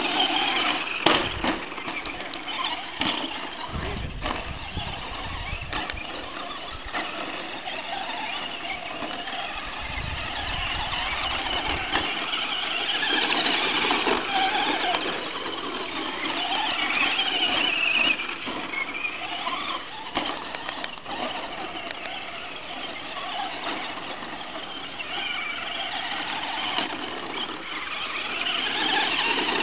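Brushless electric motors of Traxxas Slash radio-control short-course trucks whining, the pitch rising and falling with the throttle.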